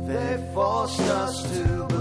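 Background song: a singing voice over steady instrumental backing, with a sung phrase through the middle.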